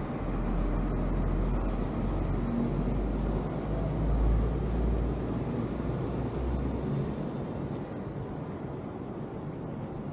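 Outdoor city street ambience with a deep low rumble that swells to its loudest about four seconds in and dies away after about seven seconds, over a steady background hiss.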